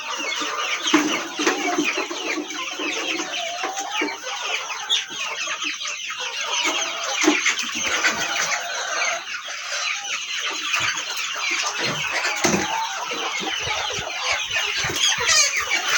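A flock of local hens clucking and calling, many birds at once, a continuous dense chatter with a few longer, lower calls standing out.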